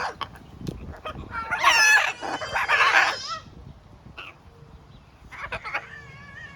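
Pet parrots calling loudly: two long, wavering squawks in quick succession, with scattered sharp clicks around them and a steady whistled note starting near the end.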